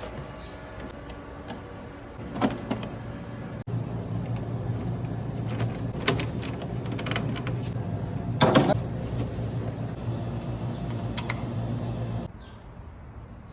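Philips AC2729 air purifier's fan motor running with a steady low hum, its bearing newly replaced, with a few sharp knocks from handling. The hum starts about two seconds in and cuts off suddenly near the end.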